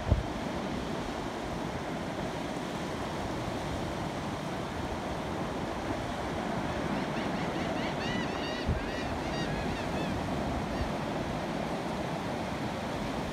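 Ocean surf washing up the beach, with wind on the microphone. About eight seconds in, a bird gives a quick series of short calls lasting a couple of seconds.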